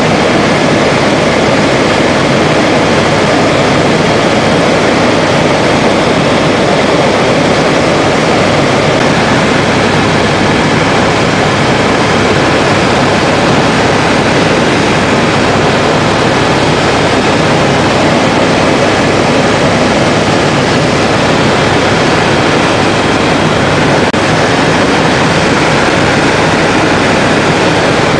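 Loud, steady engine and airflow noise inside the cabin of an aircraft in flight.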